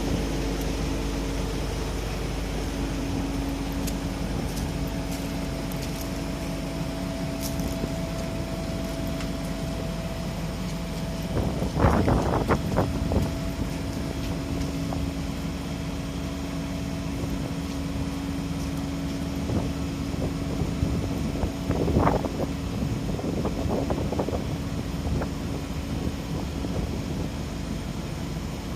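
Heavy diesel machinery running steadily, with strong wind buffeting the microphone. Clusters of clanking come a little before halfway through and again in the last third.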